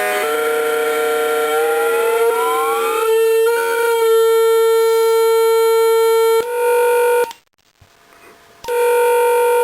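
Homemade drone synthesiser's audio oscillators sounding steady, buzzy electronic tones, one of them gliding upward in pitch about two seconds in. The sound cuts out for about a second near the end, then the tones come back.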